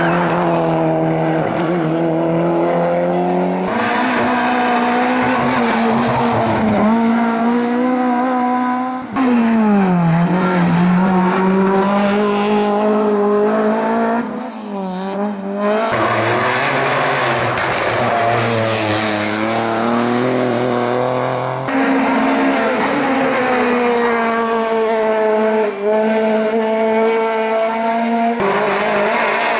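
Race car engines revving hard and running up and down through the gears as hillclimb cars accelerate and brake, several cars one after another, with abrupt changes between them.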